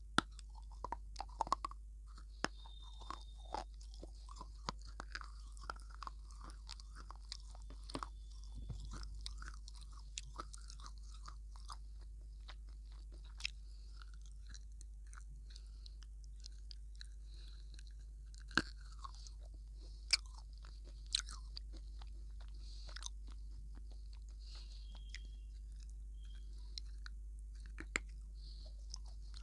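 Close-up biting and chewing of a hard, brick-like piece of baked clay: sharp crunches and clicks come every second or so, with softer mouth sounds between them. The loudest crunches fall near the start and again around the middle of the stretch.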